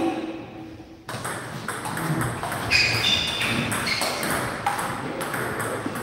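Table tennis rally: the ball clicking off rackets and the table in a quick irregular series, starting about a second in after a short pause.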